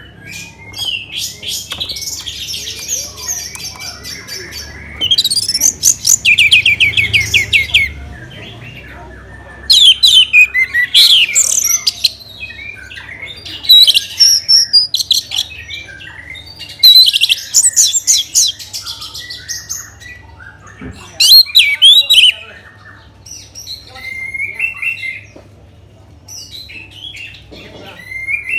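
Orange-headed thrush singing: loud, varied whistled phrases every few seconds, one of them a fast rattling trill about six seconds in, with softer chirps between.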